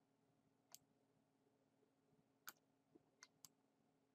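Near silence: a few faint, sparse computer mouse clicks, four or so, two of them close together near the end, over a faint steady hum.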